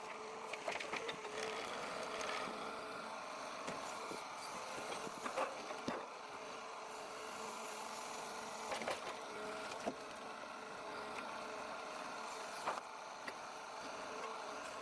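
A forestry forwarder's engine and hydraulics running steadily with a whine, broken by scattered sharp knocks and cracks of wood.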